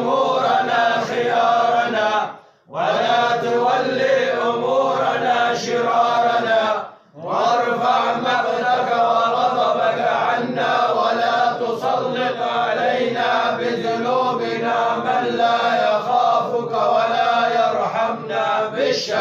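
Voices chanting an Arabic Sufi devotional supplication in a slow, drawn-out melody, broken by two short pauses for breath, about two and a half and seven seconds in.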